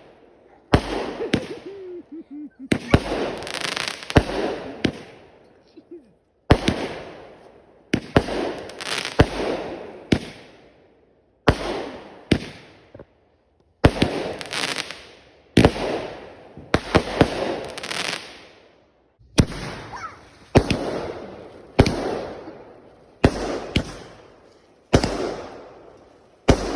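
Consumer fireworks going off in a string of loud bangs, one every second or two with short pauses, each bang trailing off over about a second.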